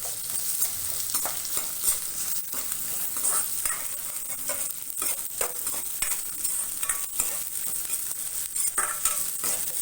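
Chopped onion with garlic, ginger and whole spices sizzling in oil in a kadai, with a utensil scraping and tapping against the pan now and then as it is stirred.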